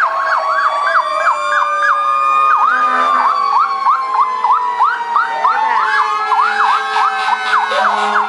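Several fire truck sirens sounding at once: a fast yelp sweeping up about two to three times a second over slower wailing tones, with a lower tone gliding slowly down early on.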